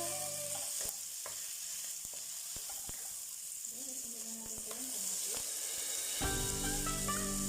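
Food sizzling in a hot frying pan as it is sautéed, with a cooking utensil knocking against the pan several times while it is stirred. Background music plays at the very start and returns about six seconds in.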